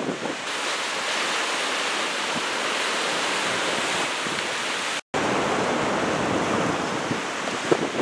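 Breaking ocean surf mixed with wind blowing on the microphone, an even, steady rush. The sound drops out for a split second about five seconds in.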